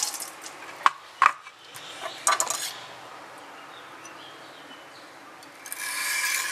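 Two sharp knocks and a short clatter as the knife and stone are handled, then near the end a stainless kitchen knife's edge drawn across the wet coarse stone of a Smith's Tri-Hone sharpener in a sustained stroke, working the burr over to the other side of the edge.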